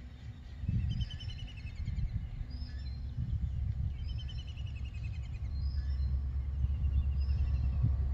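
Small birds calling in short, repeated chirping phrases, about one a second, over a low rumble that grows louder.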